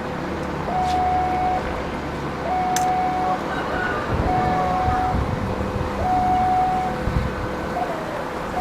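Railway level-crossing warning siren alternating between a higher and a lower tone, each held just under a second, over the low rumble of road traffic. Near the end one tone slides downward. The uploader calls the siren badly faulty.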